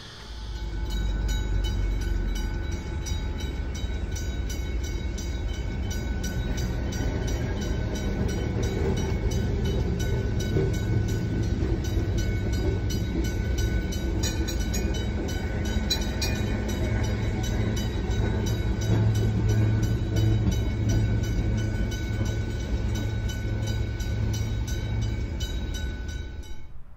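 Heritage electric tram rolling across a road level crossing, heard from inside a stopped car as a steady low rumble. Over it, the crossing's warning bells ring in a fast, regular beat.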